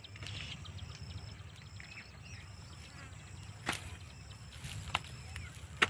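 Faint outdoor ambience: short high chirps repeating over a low rumble, with two sharp clicks, the louder one near the end.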